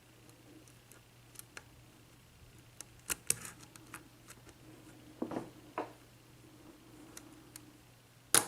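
Light scattered clicks and scrapes of a lock pick and tension wrench working the pin stacks of a Marks KIK 6-pin cylinder lock, a few louder clicks about three and five seconds in. A sharper click near the end as the plug turns and the lock opens.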